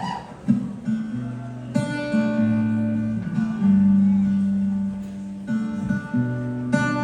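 Acoustic guitar playing a song intro live, chords left to ring, with fresh strums about two seconds in and again near the end.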